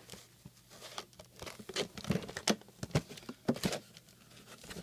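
Stiff clear plastic clamshell packaging being handled and pried at, giving a string of irregular crinkles, clicks and snaps, busiest from about a second in to near the end.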